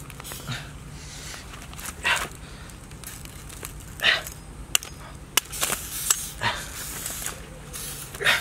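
Bananas being cut and pulled from a green bunch with a large knife: a series of short, uneven rustling swishes and a couple of sharp clicks.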